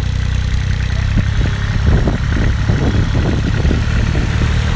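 A car engine idling steadily, with rougher, uneven noise joining from about two seconds in.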